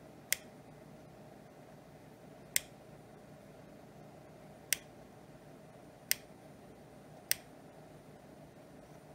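Five sharp single clicks, a second or two apart, from the rotary encoder behind the channel knob of a Cobra 19 Ultra III CB radio (converted to an OP25 scanner) as it is turned one detent at a time, each click stepping to the next talkgroup. A faint steady hum runs underneath.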